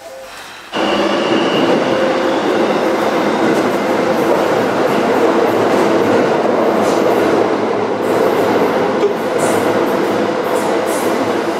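Tokyo subway train running, heard from inside the passenger car: a loud, steady rumble of wheels and motors on the rails, which sets in suddenly about a second in, with a few faint clicks in the second half.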